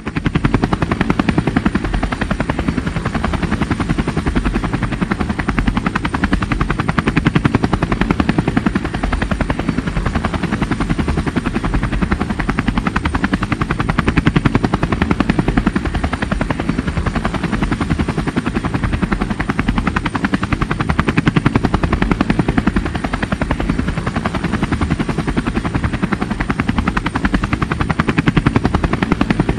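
Helicopter rotor running, its blades beating in a fast, even chop that holds steady throughout.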